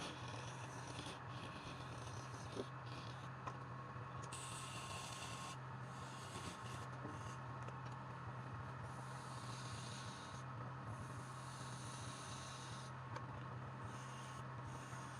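Wood lathe motor humming steadily, with faint scraping.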